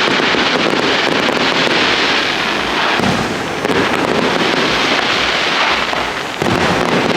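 A fireworks display: a loud, dense, unbroken barrage of bangs and crackling.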